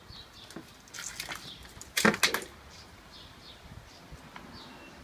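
A dog sniffing at close range in a quick run of loud sniffs about two seconds in, with a few softer ones a second earlier. Short high chirps repeat in the background.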